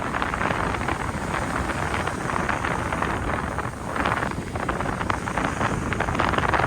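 Strong wind gusting across the microphone, swelling and easing every second or two over a low rumble, with sea waves washing underneath.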